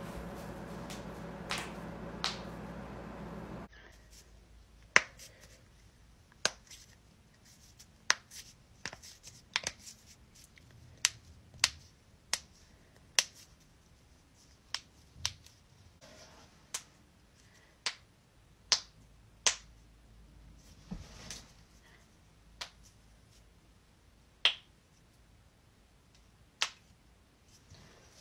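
Human joints cracking: a run of sharp, separate pops, about twenty in all, coming at irregular intervals of roughly a second.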